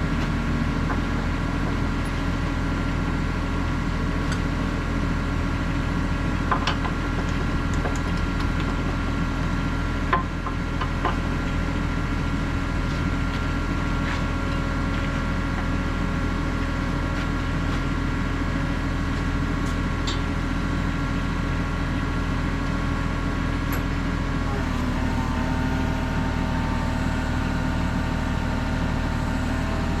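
Kubota KX91-3 mini excavator's diesel engine running steadily, its note shifting about three-quarters of the way through. There are a few light knocks along the way.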